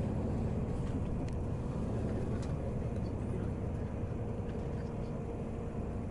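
Steady low rumble of a running vehicle, with a faint steady hum and a few light clicks.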